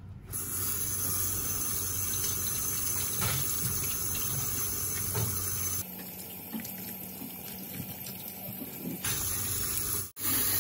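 Kitchen tap running steadily over corn cobs being rinsed by hand in a plastic colander in a stainless steel sink. The water sound drops in level for a few seconds in the middle and cuts off briefly near the end.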